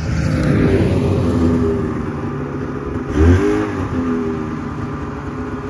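Two-stroke engine of a 1978 Polaris Cobra 440 snowmobile running as the sled is ridden, revving up and back down briefly about three seconds in, with a thump at the same moment. The freshly revived engine runs well.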